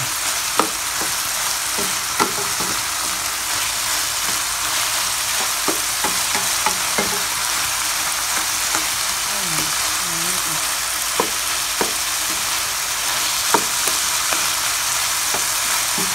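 Diced pork sizzling as it fries in hot oil in a pan, a steady hiss, with occasional taps and scrapes of a slotted spatula stirring the pieces as they brown.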